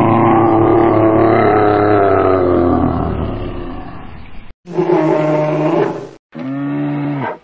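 Bear roaring: one long drawn-out roar that slowly falls in pitch and fades, then two shorter roars, each cut off abruptly.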